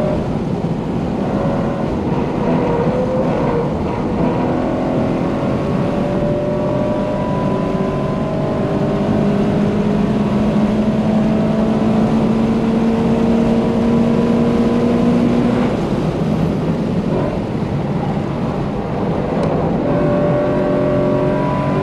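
Subaru BRZ's flat-four engine, with a catless exhaust and aftermarket header, heard from inside the cabin, pulling hard at high revs with its pitch slowly rising. About three-quarters of the way through, the note falls away as the car slows, then it picks up and climbs again near the end.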